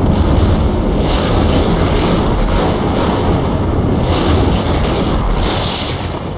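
Loud, dense rumbling and crackling from the sparking electric arcs of a mad-scientist lab machine, with brighter crackling surges every second or so.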